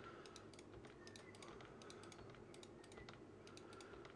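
Faint clicking of a computer keyboard and mouse, several short clicks a second, as the G key is tapped repeatedly and mouse buttons are pressed.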